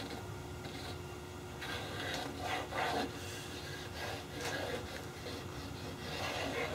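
Light, intermittent rubbing and scraping on masonite as the taped pieces are handled and super-glued along their joint, heaviest about two to three seconds in.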